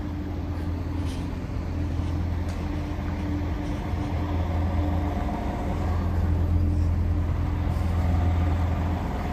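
Heavy truck running on the road: a steady low engine drone with a faint steady whine above it, slowly getting louder.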